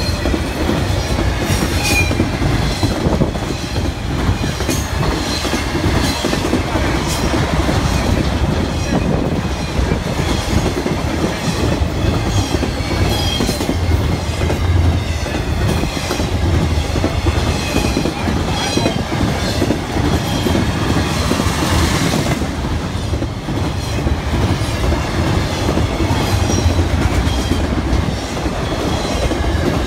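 BNSF intermodal freight train of flatcars loaded with truck trailers and containers rolling past close by: a steady rumble with a running clatter of wheels over the rail joints and crossing.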